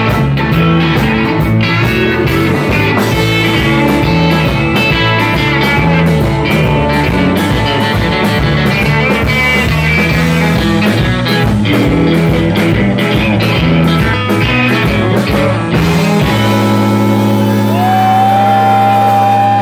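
Live bar band playing electric blues-rock: two electric guitars over drums and bass. About sixteen seconds in the beat stops and the band holds a final ringing chord, with a guitar note sliding over it near the end.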